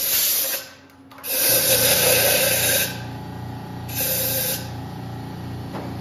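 Compressed-air blow gun blasting the freshly drilled steel part in the mill vise to clear chips and coolant, in three hisses, the last one short. A low pulsing hum comes in about a second and a half in.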